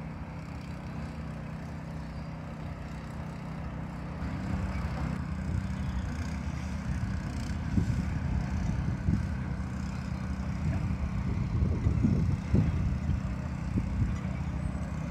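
Steady low engine hum, with wind gusting on the microphone, the gusts stronger in the second half.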